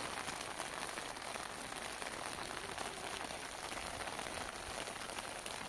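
Steady rain falling, an even hiss dotted with many small drop ticks.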